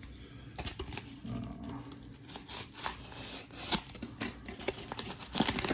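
Packaging being handled: irregular rustling and crinkling with scattered sharp clicks and taps.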